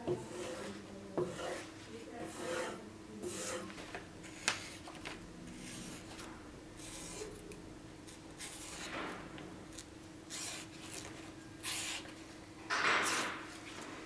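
Irregular abrasive rubbing and rasping strokes made by hand, with a steady low hum underneath. The loudest, longest stroke comes near the end.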